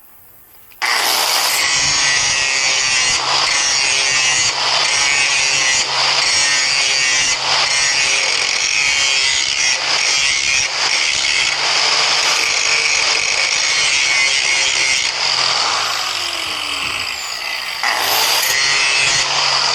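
Power grinder running against the steel edge of a lawn mower blade, rough-grinding it to sharpen it. It starts suddenly about a second in and runs with a harsh, high grinding noise, swelling faintly with each pass along the edge. It eases off briefly near the end, then bites in again.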